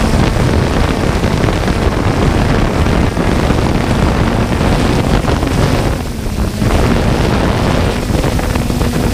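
3DR Solo quadcopter's rotor noise mixed with wind buffeting its onboard camera's microphone: a loud, steady rushing noise with a faint hum.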